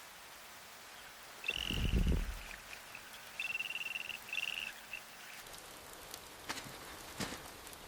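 Quiet swamp ambience: light dripping rain with a high trilling animal call twice, and a brief low rumble about a second and a half in.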